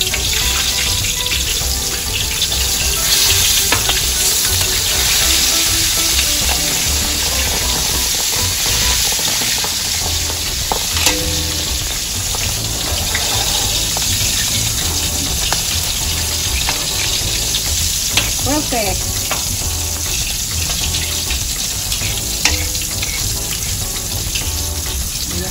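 Whole stuffed milkfish deep-frying in oil in a wok: a steady, loud sizzle, with a few brief clicks of metal spatulas against the wok as the fish is turned.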